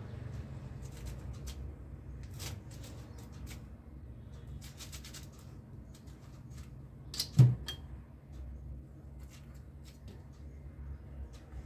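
Round metal cookie cutter pressed through rolled sesame dough onto a granite countertop: light scattered clicks and taps, with one louder knock a little past halfway.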